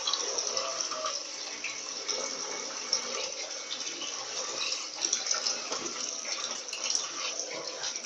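Electrolux LTD15 top-loading washing machine spinning a heavy, packed load in its spin cycle: a steady rush of water being flung out of the basket and drained, with scattered small clicks and knocks.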